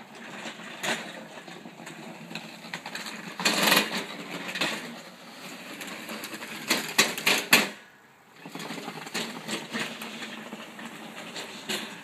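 Electric drive motors of a remote-controlled lawnmower cart whirring as it drives across a concrete driveway, with rattling clicks and two clusters of loud clacks about three and a half and seven seconds in. The noise drops away briefly around eight seconds, then resumes.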